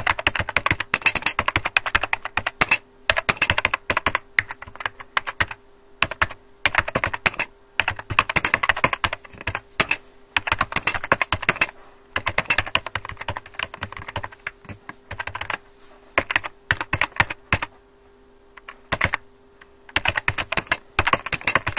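Rapid keyboard typing clicks in runs of one to three seconds, broken by short pauses, used as a typing sound effect, with a faint steady hum underneath.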